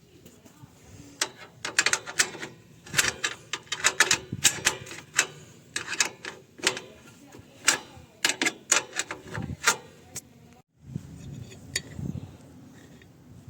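Irregular clicking and clinking of hand tools and metal parts being handled while a car horn is fitted, with a quick run of sharp knocks in the middle.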